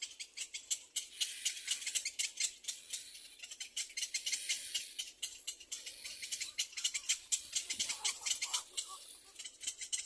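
Little black cormorant chicks giving rapid, raspy rattling calls, many clicks a second, without a break.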